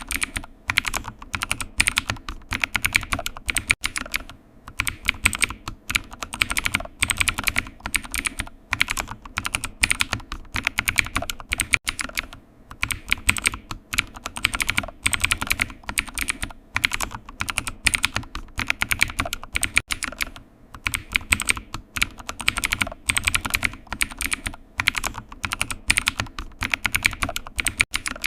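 Computer keyboard typing: rapid runs of key clicks with short pauses between bursts, going on steadily.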